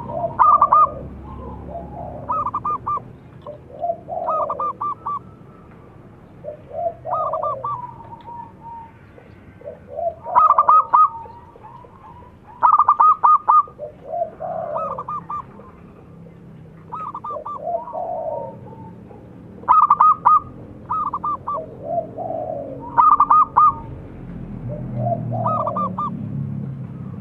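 Zebra dove (perkutut) cooing: repeated call phrases, each a lower sliding note followed by a quick run of high stuttering notes, coming about every two to three seconds.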